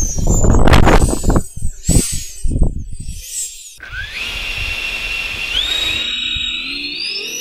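Electric ducted fan motors on a 3D-printed rocket, whining high. In the first three seconds there is a loud rushing noise with a couple of sharp knocks. After that the fans whine steadily, step up in pitch about two-thirds of the way in, and then rise and waver in pitch.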